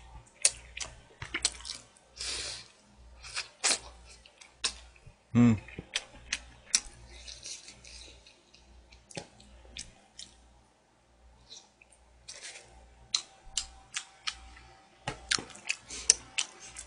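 Eating sounds: wooden chopsticks clicking against plastic food containers and chewing, with many short sharp clicks scattered throughout. A brief low vocal sound about five seconds in is the loudest moment.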